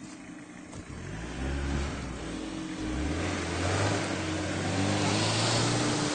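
Mitsubishi Pajero II SUV's engine revving hard under load in deep mud, climbing about a second in, dropping briefly near the three-second mark, then held at high revs. A rushing noise builds over it in the second half as the wheels spin and throw mud.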